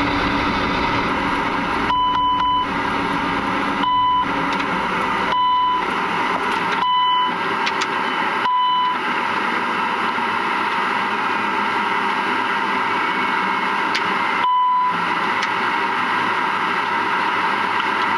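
Airbus A300-600 flight deck noise: a steady rush of air, with a short electronic beep about every one and a half seconds from about two seconds in, five in all, and one more near the end. A low rumble underneath fades out about halfway through.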